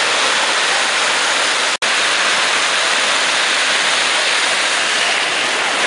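Steady hiss of breaking surf and whitewater rushing in the shallows, broken for an instant a little under two seconds in.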